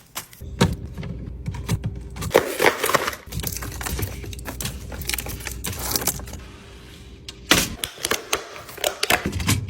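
Drink cans and bottles clinking and knocking against each other and the shelves as they are set into a mini fridge, an irregular run of sharp clinks and taps with a busier clatter about two and a half seconds in.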